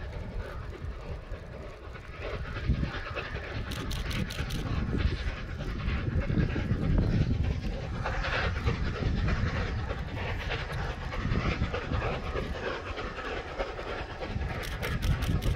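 The Flying Scotsman, an LNER A3 three-cylinder Pacific steam locomotive, passing with its train, growing louder about two seconds in and staying steady.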